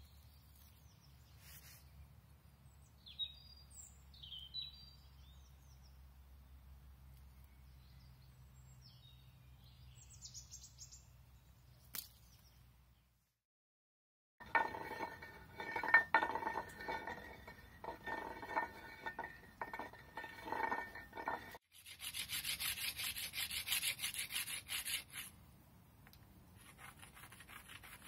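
Faint bird chirps over quiet outdoor ambience for the first half. Then loud, rhythmic scraping strokes, turning to a higher, hissing rub of stone on stone as a small piece of limestone is ground against a limestone slab to shape a stylus.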